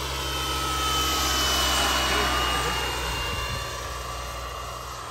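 Turbine engine of a Whiplash 700 radio-controlled helicopter in flight: a steady high whine over a rushing noise. It swells about two seconds in as the helicopter passes, then fades, and the whine's pitch slides slightly down.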